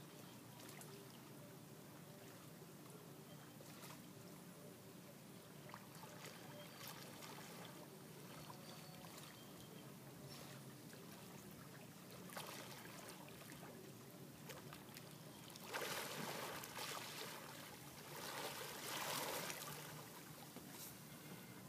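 Manatees splashing and sloshing the water as they roll at the surface, with two louder stretches of splashing near the end over faint lapping water.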